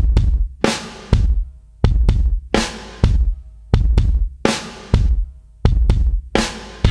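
Music: loud drum kit hits with heavy bass, a steady pattern of accented strikes, each ringing out.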